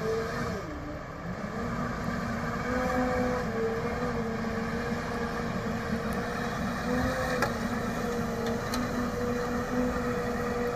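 Fat Truck off-road vehicle's engine running steadily under load as it crawls over rock moguls. Its pitch dips briefly about a second in, then holds nearly level with slight wavering.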